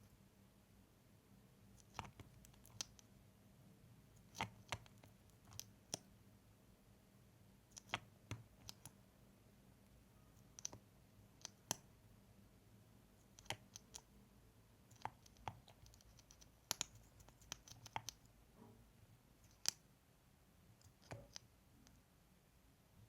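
Close-miked ASMR mouth sounds: irregular wet clicks and smacks of lips and tongue, short and sharp, some coming in quick pairs, against a quiet background.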